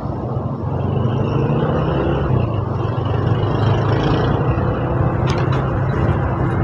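Engine of the moving vehicle carrying the microphone, running steadily under wind and road noise and growing louder about a second in. A few short clicks come late on.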